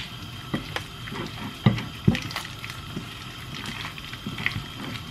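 Raw chicken pieces being squeezed and tossed by a plastic-gloved hand to coat them in cornflour and turmeric: wet squelching with irregular soft knocks, two louder ones about two seconds in.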